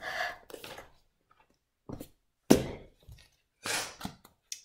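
A few scattered knocks and rustles of someone moving about and handling things, with one sharp thunk about two and a half seconds in the loudest and a longer rustle shortly after.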